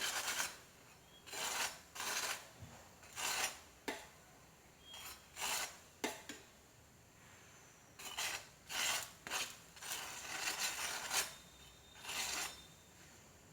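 A paratha being pressed and rubbed around on a hot ghee-greased tawa while it browns, making repeated short rasping strokes about once a second, with a pause in the middle.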